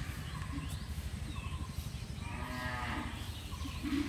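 A cow mooing once, a drawn-out call of about a second near the middle, over a low steady rumble.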